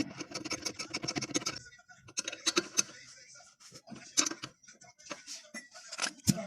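A quick run of small clicks for about the first second and a half, then scattered light clicks and taps.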